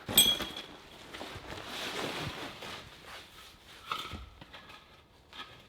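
A sharp metallic clank with a short ring, then scraping and handling noise and a couple of lighter metal knocks, as tools or jacking gear are handled.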